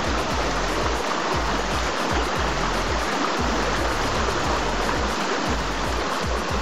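River in flood, a fast current giving a steady, loud rushing of water.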